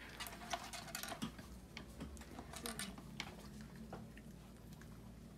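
Light, irregular plastic clicks and rattles from a treat-dispensing drum toy as a chihuahua noses and paws it round on its chopstick axle, treats rattling inside. The clatter thins out after about four seconds.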